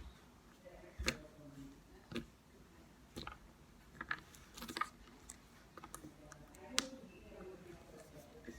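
Slime being poked and squeezed by hand, giving off faint scattered clicks and small pops.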